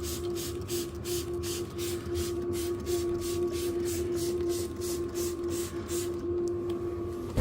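Sprayer misting EvapoRust rust remover onto rusty steel parts in rapid spurts, about four or five a second, stopping about six seconds in. A steady hum runs underneath.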